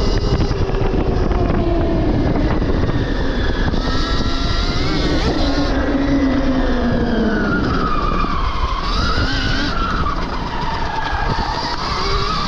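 Stark Varg EX electric dirt bike's motor whining, its pitch rising and falling as the rider speeds up and slows, over a constant rush of noise.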